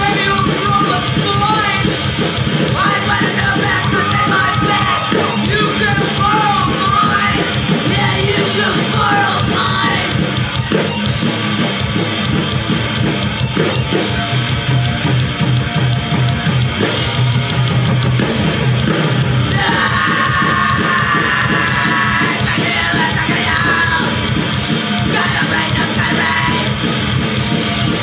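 Punk rock band playing live: loud, continuous full-band music with drums and instruments.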